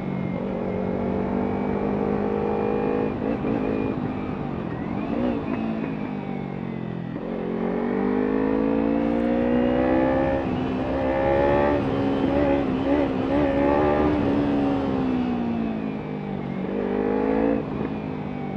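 Kawasaki Ninja 300's parallel-twin engine, fitted with an Arrow exhaust, under way on the road. The engine note falls and climbs several times as it slows and accelerates, running highest from about ten to fourteen seconds in.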